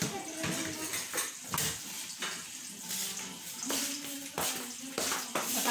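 Plates, bowls, cups and cutlery clinking and knocking on a table as it is set for a meal, about a dozen separate knocks over a steady hiss.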